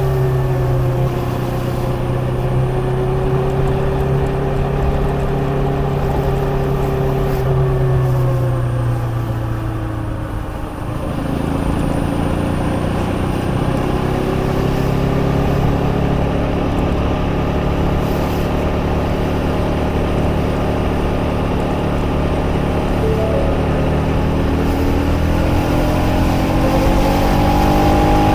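KTM Duke 250's single-cylinder engine running on the road. The revs sink slowly for about ten seconds as the bike rolls off, dip briefly, then climb steadily as it pulls away again.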